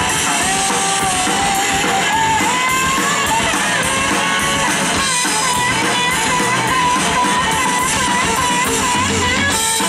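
Live rock band playing blues-rock, with an electric lead guitar playing sustained, bending lines over bass and drums.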